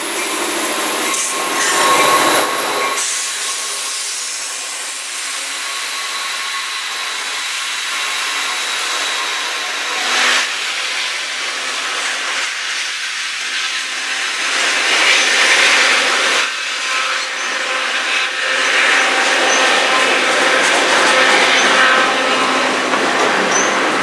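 Diesel locomotives of a freight train passing close while working under power, loud for the first few seconds, then a long string of loaded gondola cars rolling by with steady wheel-on-rail rumble, thin squeals and an occasional clank.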